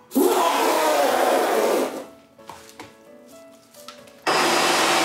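A man's loud, rough vocal imitation of an elephant trumpeting, with wavering pitch, for about two seconds. After a quieter stretch with a few short tones and clicks, an upright Hoover vacuum cleaner switches on abruptly about four seconds in and runs steadily.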